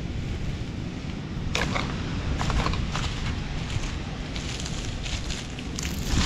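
Wind rumbling on the microphone, with scattered crinkles and clicks of gloved hands handling plastic litter and sand; near the end the litter goes into a plastic bucket with a louder rattle.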